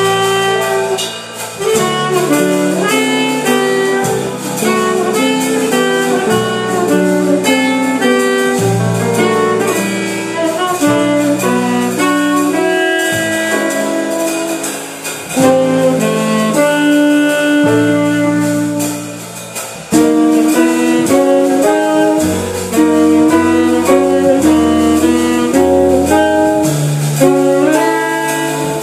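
Small jazz combo playing live: saxophone out front over piano, archtop guitar, upright double bass and drum kit with cymbals. The music runs on with a couple of brief dips in loudness, the largest about twenty seconds in.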